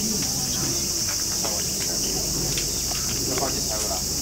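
A steady, high-pitched insect drone from the trees.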